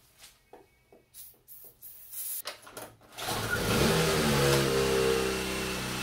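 Small gasoline range-extender engine on an electric mini bike starting on starter fluid: a few faint clicks and rattles, then the engine catches about three seconds in and runs at a steady speed.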